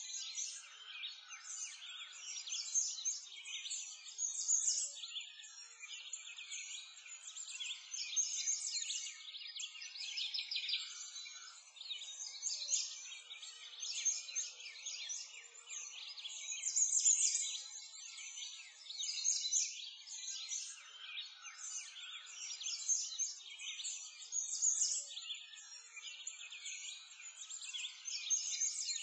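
A dense chorus of songbirds chirping and twittering without a break.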